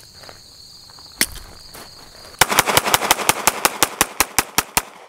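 Glock 43X 9mm subcompact pistol fired in a rapid string, several shots a second for about two and a half seconds, starting about halfway in. A single sharp crack comes about a second in.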